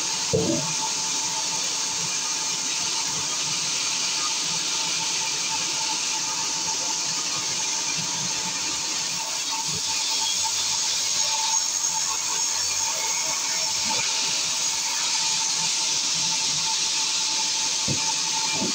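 Large vertical band saw ripping lengthwise through a log: a steady hiss of the blade cutting wood over a constant whine from the running saw. A knock just after the start and another near the end as the timber is handled.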